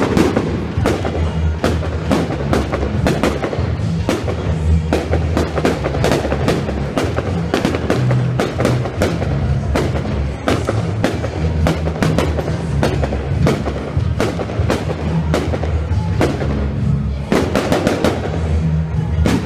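Fireworks display going off, a rapid run of bangs and crackles from bursting shells, several a second, with a quick cluster near the end. Loud music plays under the bangs.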